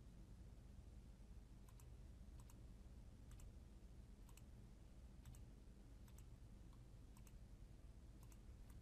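Faint computer mouse clicks, about one a second, each a quick pair of press and release, over a low steady hum.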